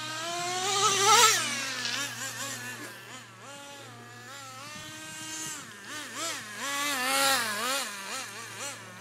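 Nitro RC car's small glow-fuel engine running at high revs with a high buzzing whine. It is loudest about a second in, and its pitch then drops quickly. Later the pitch rises and falls several times with the throttle, with a second loud stretch near the end.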